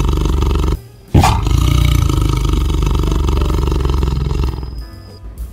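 Tiger roaring: one long roar cuts off under a second in, and a second long roar starts about a second in and runs some three seconds before fading.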